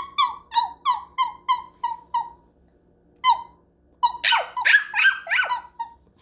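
High-pitched puppy yips made by a person playing at being a puppy. Each yip is short and falls in pitch. There is a quick run of about eight at roughly three a second, a pause, one more, then a faster cluster of about six near the end.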